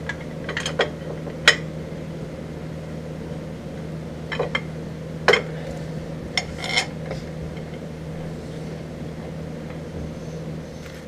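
Scattered sharp metallic clinks and taps as steel bolts and torque converter parts are handled and fitted by hand on a small engine, the loudest about five seconds in, over a steady low hum.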